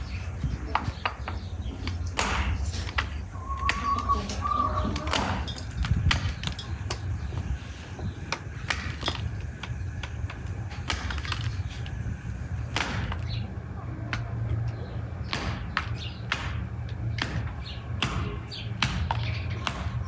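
Irregular sharp knocks and taps over a low steady rumble, with a short warbling call about four seconds in.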